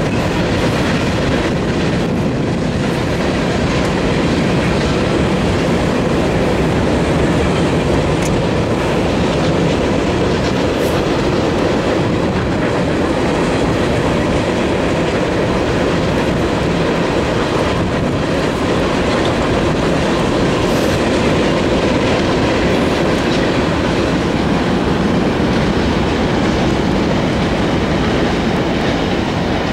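Freight cars of a long CSX mixed freight train rolling steadily past: a continuous rumble of steel wheels on the rails, with faint clicks over the rail joints.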